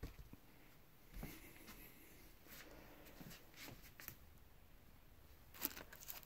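Faint handling noises: scattered soft rustles and clicks, with a sharper rustle near the end as an action figure is picked up off its paper and plastic packaging.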